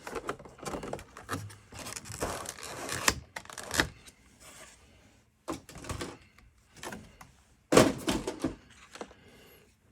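A cardboard trading-card collection box being opened and its contents handled: a run of scrapes, taps and rustles of cardboard and card packaging, with a louder cluster of handling noises about three quarters of the way through.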